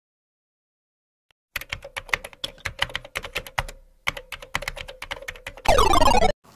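Computer keyboard typing sound effect: a quick run of key clicks starting about a second and a half in, with a short pause in the middle, over a faint steady tone. It ends about six seconds in with a brief, loud electronic sweep.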